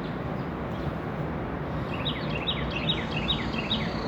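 A songbird's quick series of short, high, falling chirps, about four a second, starting about halfway through over a steady background hiss of outdoor noise.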